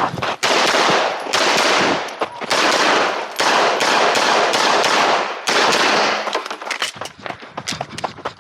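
Rapid pistol gunfire, loud shots in quick strings. About five and a half seconds in it breaks into more widely spaced single shots.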